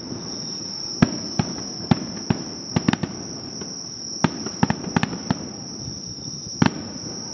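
Fireworks going off in a scattered series of about a dozen sharp bangs at irregular intervals, over a steady high-pitched insect trill.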